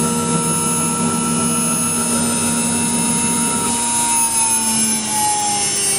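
CNC router running: the spindle's steady high whine together with the machine's motor tones, one of which slides lower in pitch about four seconds in as the spindle head lifts off the wooden workpiece.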